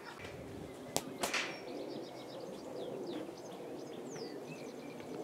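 Birds chirping and singing throughout over an outdoor rumble, with two sharp knocks of a cricket ball about a second in, a quarter second apart, as the bowled ball reaches the batsman.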